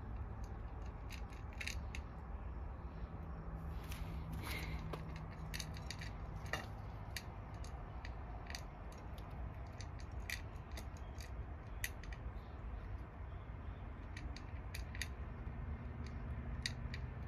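Cat eating from a bowl: a string of irregular small clicks from its chewing and licking.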